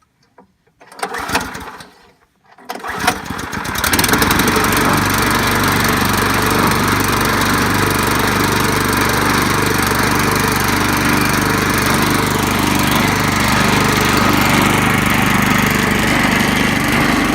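Log splitter's small gasoline engine starting. It is cranked briefly about a second in, catches around three seconds, and then runs steadily at a constant speed.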